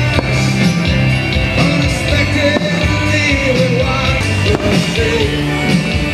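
Live rock-and-roll band playing with a singer, amplified through the stage sound system.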